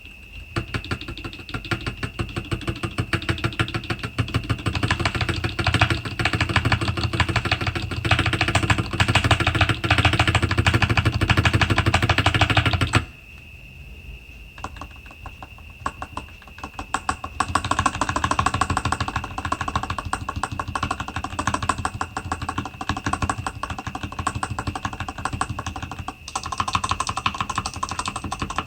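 Rapid typing on a Rexus Daiva RX-D68 mechanical keyboard with Outemu red linear switches: a fast, continuous clatter of key clicks. It eases off for about three seconds around the middle, then picks up again.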